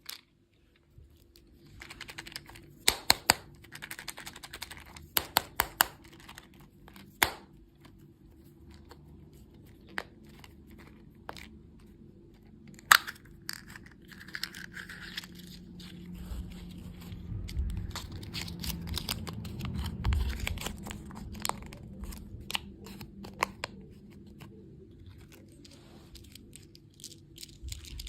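Plastic candy wrappers being torn open and crinkled: clusters of sharp crackles and clicks, with a low rumble of handling in the second half.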